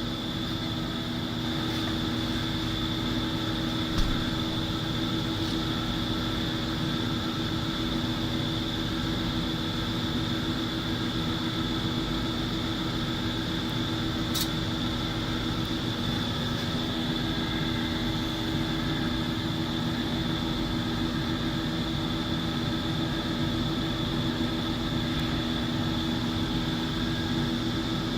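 Steady machinery hum with a few constant pitched tones running throughout. A knock about four seconds in and a sharp click around fourteen seconds.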